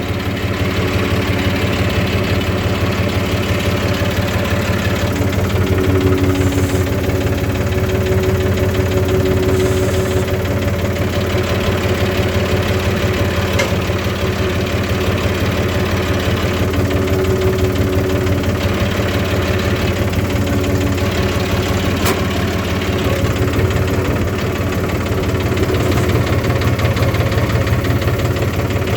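A farm machine's engine running steadily at idle, its firing pulses even throughout.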